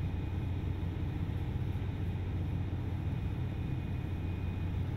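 Steady low rumble of rig machinery running, with a faint steady high-pitched tone over it.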